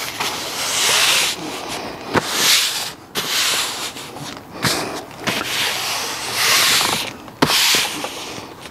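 Heavy canvas seat-back cover rubbing and scraping over a car seat back as it is pulled down and smoothed into place, in repeated swells of rustling about a second long, with a few sharp clicks.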